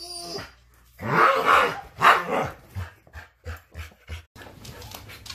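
A dog vocalizing: a short whine at the start, then two loud barks about a second apart, followed by a run of softer short sounds.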